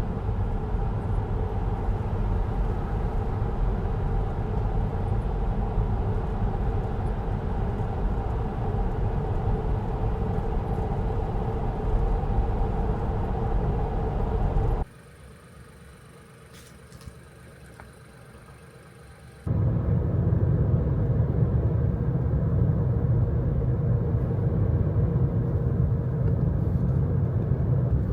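Car driving along a road: a steady rumble of tyres and engine. About fifteen seconds in it gives way for some five seconds to a much quieter stretch with a faint high steady tone, then the rumble comes back louder and deeper.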